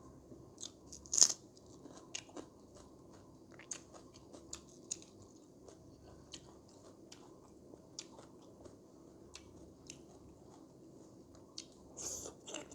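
A person chewing food close to the microphone: quiet, scattered mouth clicks and small crunches, with a louder crunch about a second in and a few more near the end.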